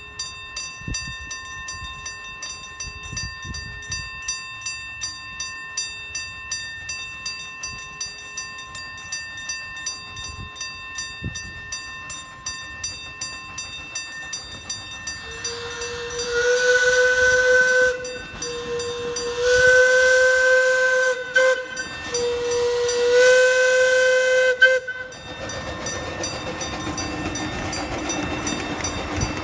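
Grade-crossing signal's gong bells ringing about twice a second, then a miniature steam locomotive's whistle sounds three blasts of about two seconds each, each sliding up in pitch as it starts. Near the end the train rumbles past over the crossing.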